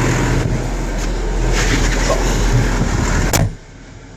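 Tractor and John Deere 535 round baler running with a steady mechanical noise and low hum, then a sharp click about three and a half seconds in, after which the noise drops away sharply.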